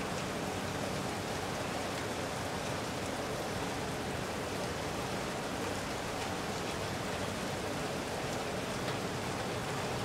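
Moderate rain falling steadily, an even patter of drops.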